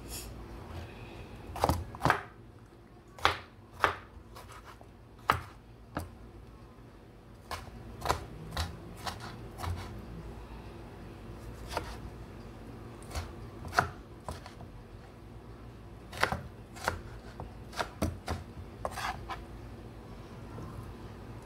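Kitchen knife chopping tomatoes on a wooden cutting board: irregular sharp knocks of the blade striking the board, some in quick pairs and short flurries, with pauses between.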